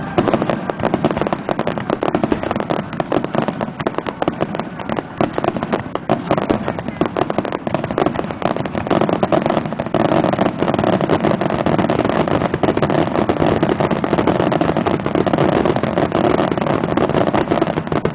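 Many fireworks bursting in quick succession, a dense, unbroken run of crackles and pops.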